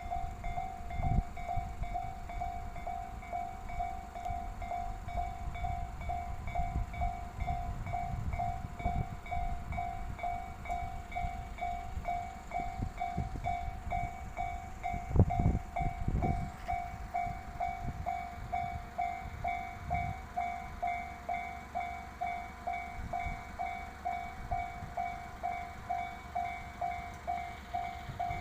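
Japanese level-crossing alarm bell ringing with a steady, evenly repeated electronic ding. Underneath, a train rumbles past, with a few heavier thumps about a second in and again around the middle.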